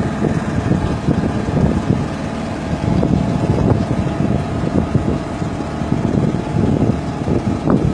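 Small motorboat's engine running steadily while under way, with wind buffeting the microphone.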